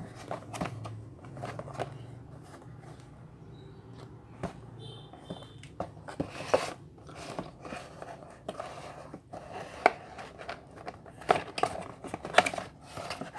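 Cardboard toy box being handled and turned in the hands: scattered rubbing, tapping and crinkling of the card, growing louder and busier near the end as the box's end flap is worked open.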